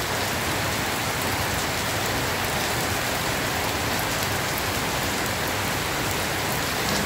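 Heavy rain falling steadily on wet concrete and standing water, a continuous even hiss.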